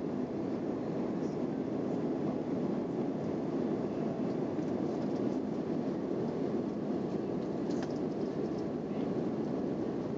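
Steady cabin noise of a jet airliner in flight, heard from a window seat: an even, low rush of engines and airflow.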